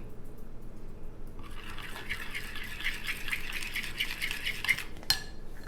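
Thick flaxseed and niger-seed batter stirred briskly in a bowl, about five quick scraping strokes a second, starting about a second and a half in and stopping near five seconds, as a little salt is worked in; one sharp click just after.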